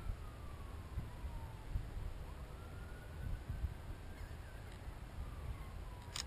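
A faint distant siren wailing slowly: its pitch falls over the first couple of seconds, rises again, then falls once more. Underneath is a low rumble, and a sharp click comes near the end.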